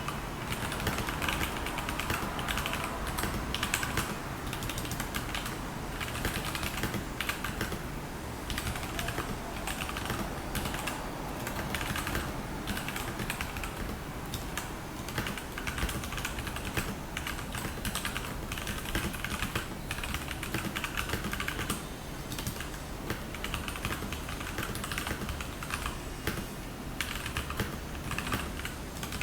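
Continuous fast typing on a Royal Kludge RK84 mechanical keyboard with linear Gateron Yellow switches and ABS double-shot keycaps: a dense, steady stream of key clacks.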